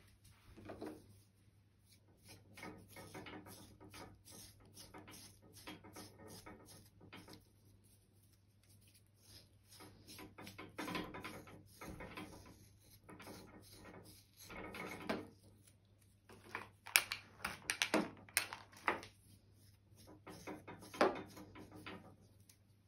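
A coat stripping knife drawn again and again through a cocker spaniel's coat, in short scraping strokes with a few sharper clicks about three-quarters of the way in, over a steady low hum.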